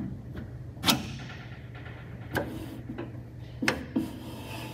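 A series of short, sharp metallic clicks and knocks, about six in all and the loudest about a second in, from the steering column shaft being worked off the steering rack's splined pinion. A steady low hum runs underneath.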